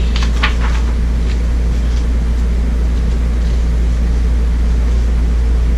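Steady low hum throughout, with a few soft paper rustles as a picture book's pages are turned.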